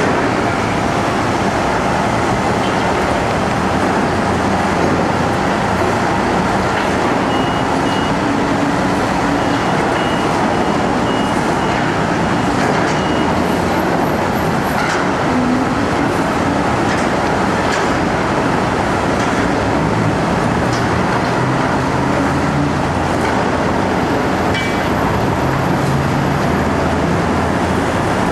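Heavy construction machinery running: a steady, loud, unbroken engine and machine noise. A few short, faint high tones repeat for several seconds around the middle.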